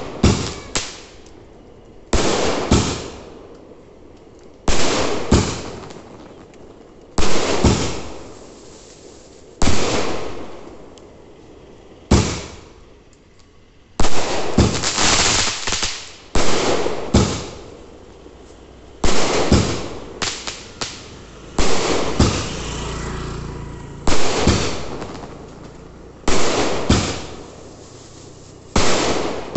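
Aerial fireworks bursting overhead one after another, about every two and a half seconds. Each goes off with a sharp bang trailed by smaller pops that fade away.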